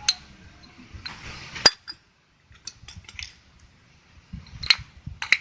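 Metal scooter CVT parts and hand tools clinking and knocking as they are handled during reassembly: a few sharp metallic clicks, the loudest about a second and a half in after a short scrape, and two more near the end.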